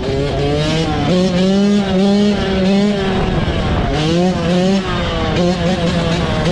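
An engine running at high revs, its pitch rising and falling several times as the throttle is worked.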